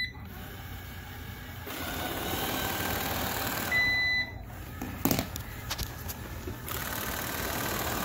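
Amarey A800 robot vacuum: its suction motor and brushes start up about two seconds in and run with a steady whirr. About four seconds in there is a single clear half-second beep from the robot answering a remote button press. A few sharp clicks follow, and then the motor runs again near the end.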